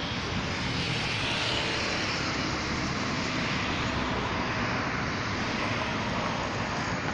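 Steady engine drone over a rushing noise, swelling a little twice.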